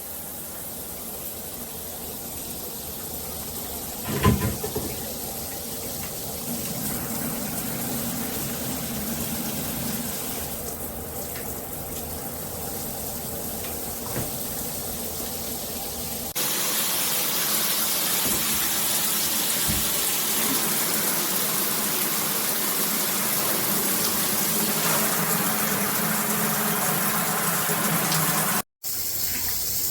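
Water spraying from a shower head, a steady hiss, with one sharp knock about four seconds in. A little past halfway the sound switches abruptly to a louder, brighter spray hiss.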